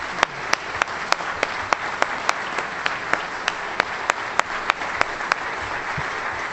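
Audience applauding steadily. Over it come sharper, louder claps from one person close to the microphone, about three a second, which stop about five seconds in.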